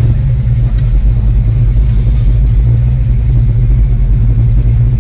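1967 Chevelle SS 396's big-block V8 running at a steady low idle, heard from inside the cabin as the car creeps along at walking pace. The engine is still cold.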